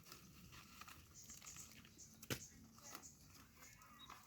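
Near silence, with a few faint rustles and one short, sharp click a little over two seconds in.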